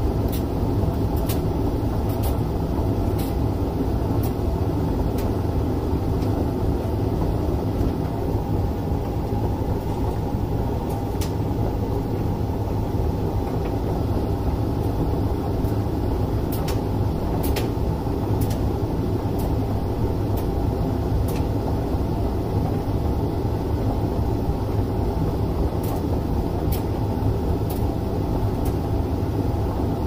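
Hoover front-loading washing machine running with a steady low rumble, with scattered sharp clicks over it.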